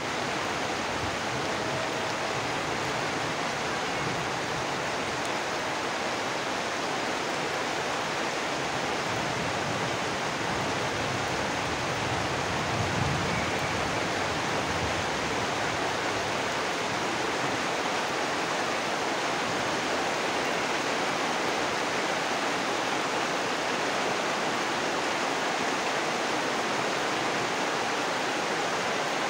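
A steady, even rushing hiss that holds the same level throughout, with no distinct events or tones in it.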